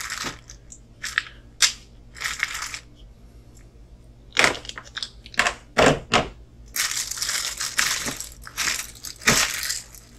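Small plastic kit parts and packaging being handled: irregular clicks and knocks with crinkling rustles, and a longer stretch of rustling near the end.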